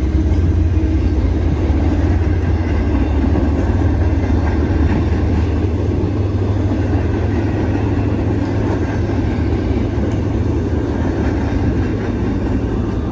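Loaded freight-train flatcars rolling past, a steady loud noise of steel wheels on the rails that eases slightly near the end.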